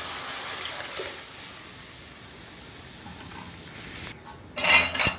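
Chickpea batter poured into hot cumin-tempered oil in a kadhai, sizzling loudly at first and dying down within a couple of seconds to a faint bubbling hiss. A short louder burst of noise comes near the end.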